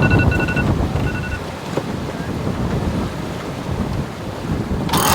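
Wind buffeting the microphone, with water rushing past the hull of a sailboat under way. Near the start there are two short electronic beeps.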